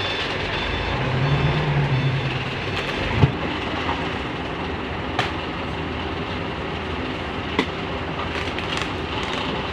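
Heavy diesel machinery working: engines running steadily, swelling briefly early on, with a few sharp metallic clanks.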